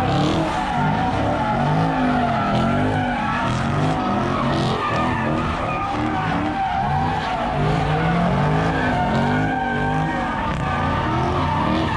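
Cars doing donuts: engines revving up and down over and over, with tyres squealing and skidding on the asphalt.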